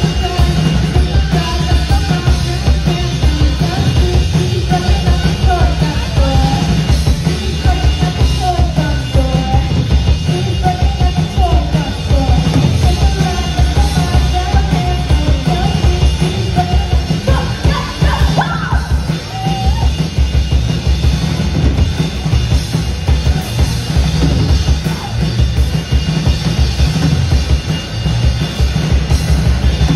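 Live rock band playing loud: electric guitars, electric bass and a drum kit, the bass and kick drum pounding steadily, with a melodic line wavering above them for much of the time.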